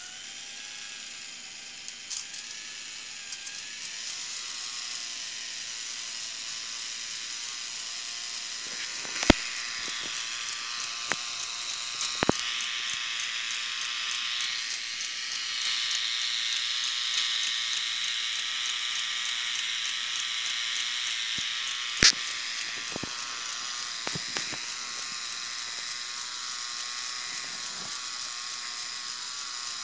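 K'nex plastic model of a two-stroke engine running: its plastic gears, crank, pushrod and flywheels whir steadily with a light rattle. A few sharp knocks stand out, loudest about nine and twenty-two seconds in.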